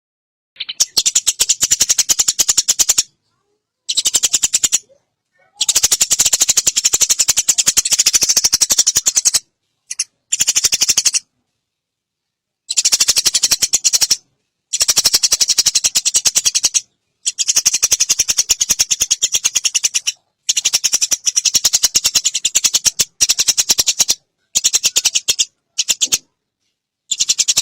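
Eurasian tree sparrow giving a long, very rapid chattering call, high and clicking, in about a dozen bursts of up to four seconds that start and stop sharply.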